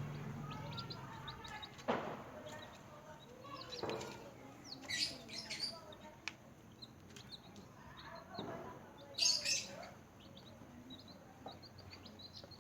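Newly hatched chicks peeping: many short, high chirps throughout, with a sharp knock about two seconds in and louder rustles about five and nine seconds in.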